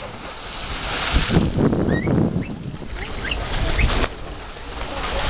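A person diving into the sea from a boat's front platform: a rushing splash of water about a second in, followed by a few short, high, rising calls.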